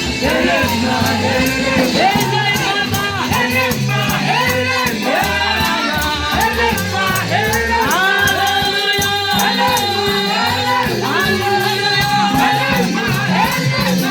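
Gospel worship music with bass and melodic parts, and a shaker keeping a quick, steady rhythm.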